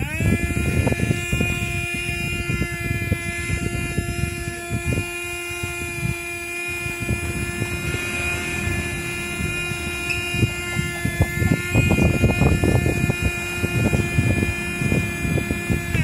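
Electric drive motors and gearboxes of a toy RC bulldozer whining at a steady pitch, with its plastic tracks clattering and crunching over dirt and dry sticks. The whine settles in at the start and drops in pitch right at the end.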